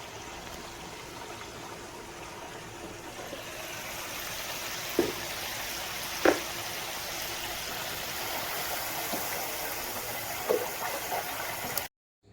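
Hot oil sizzling steadily in an electric deep fryer, with a few sharp pops and crackles in the second half.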